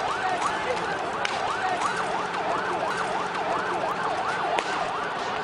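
Emergency vehicle siren in a fast yelp, its pitch rising and falling about three times a second, over a steady haze of street noise.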